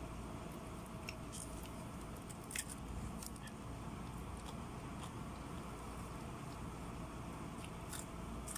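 Broasted (pressure-fried) chicken being torn apart by hand and chewed: scattered crisp crackles and clicks of the fried coating, over a steady low background hum.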